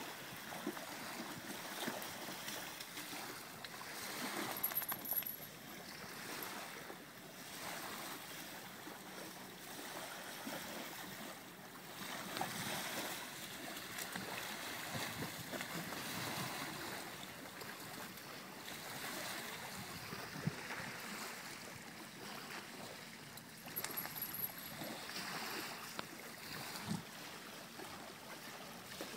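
Small waves lapping quietly on a sandy beach, with a dog's legs splashing as it wades through the shallows; the water noise swells up a few times.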